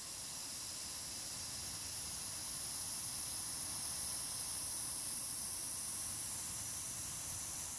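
A woman's 'whistling breath': one long, unbroken hiss of breath into a close headset microphone. It is a calming breath-work exercise that freedivers use before a breath-hold.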